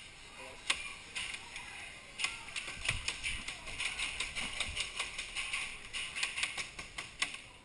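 Airsoft guns firing: quick runs of sharp plastic clicks and snaps, irregular and overlapping, from about two seconds in until just before the end.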